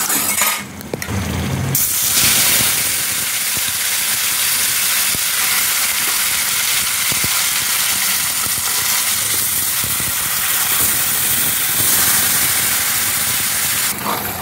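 Marinated country chicken with onions sizzling hard in hot oil in a kadai, a loud steady hiss that sets in about two seconds in as the wet pieces start to fry.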